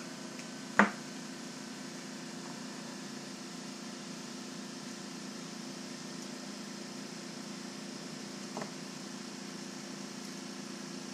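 Steady background room hum, with one sharp click just under a second in and a fainter one about eight and a half seconds in: small parts or a small screwdriver being handled and set down on the desk during hand assembly of an RC rock crawler's front axle.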